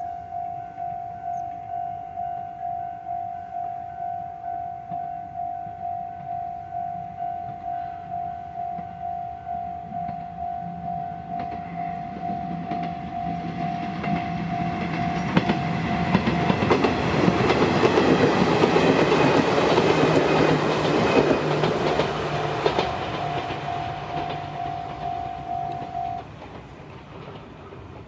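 Level-crossing warning bell ringing at about two strokes a second while an Izuhakone Railway Sunzu Line electric train comes up, passes over the crossing with its wheels clattering on the rail joints, and draws away. The bell stops near the end, as the crossing clears.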